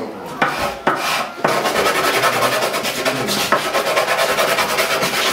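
Fast, even rasping strokes on wood: the end of an elder-wood stick for claves being rounded off by hand. A few sharp knocks come in the first second and a half before the rasping settles in.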